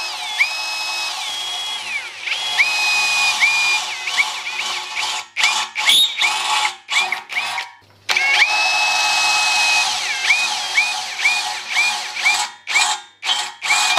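Cordless brushless 18V hammer drill (Makita replica) in plain drilling mode, boring 5 mm holes through thin steel box tube. The motor gives a high whine that steps up and down in pitch as the bit cuts. There are two long runs, each followed by a string of short trigger blips, about two a second after the second run.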